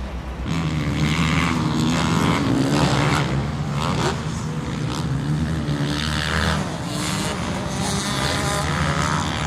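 Motocross dirt bike engine revving hard as it is ridden round a dirt track, the pitch climbing and dropping several times as the rider works the throttle and gears.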